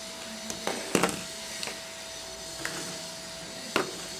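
A few short, sharp knocks and clicks, the loudest about a second in and near the end, over a steady hum with a thin high tone.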